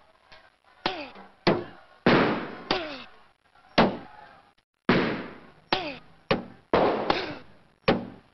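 A rapid series of about ten loud, sharp impacts at irregular intervals, each dying away quickly, some leaving a brief ringing tone that falls in pitch.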